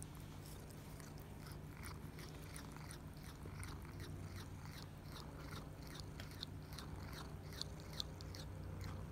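A tabby kitten nibbling and chewing on a person's hand: a steady run of small, wet mouth clicks, with two louder ones near the end.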